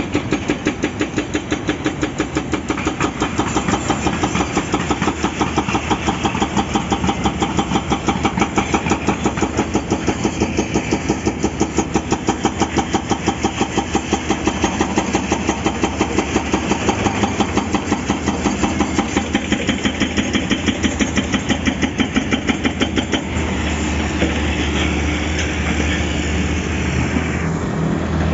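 Excavator-mounted hydraulic breaker hammer pounding asphalt and rock in a fast, even rhythm of several blows a second, over the excavator's diesel engine. The hammering stops about 23 seconds in, leaving the engine running with a steady low hum.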